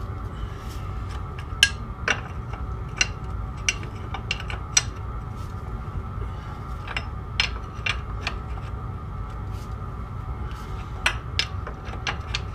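Irregular sharp metallic clinks and knocks of metal tools and parts being handled, over a steady low hum.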